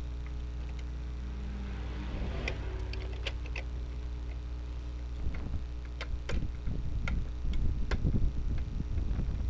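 Scattered light clicks and taps of plastic printer parts and cable connectors being handled and fitted, more frequent in the second half, over a steady low hum.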